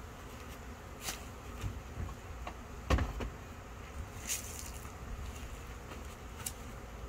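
Honeybees buzzing steadily around a hive, with a few scattered knocks and clicks; the loudest is a thump about three seconds in.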